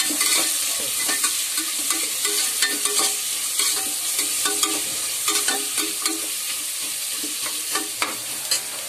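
Sliced onions sizzling in hot oil in a pan while a spoon stirs them, with repeated irregular scrapes and clinks of the spoon against the pan over a steady hiss. The onions are being sautéed toward golden brown.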